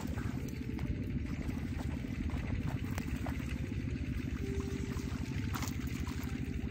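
A steady low rumble runs throughout. About five and a half seconds in, a fish splashes as it strikes at the lure near the surface.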